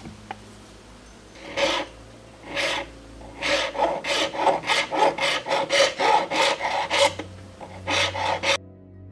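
Round file rasping back and forth across a wood-and-resin knife handle. Two separate strokes come first, then a steady run of about three strokes a second that stops shortly before the end.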